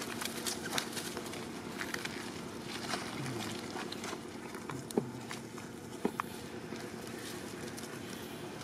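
Dry leaves crackling and rustling as long-tailed macaques scamper over leaf-littered ground, with a couple of sharper clicks about five and six seconds in.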